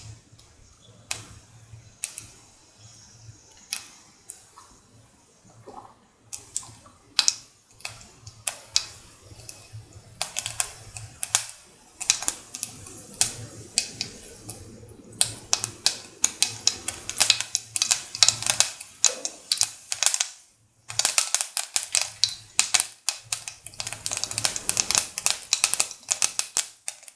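Mustard seeds popping in hot oil in a pan, at the tempering stage when the oil is hot enough. Scattered single pops at first grow into a rapid crackle from about the middle on, with a brief lull just before the end.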